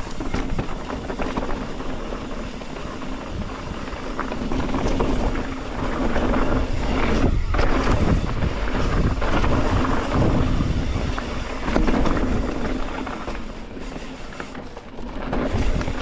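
Mountain bike riding a rocky trail: wind rushing over the microphone and tyres rumbling over rock, louder through the middle stretch.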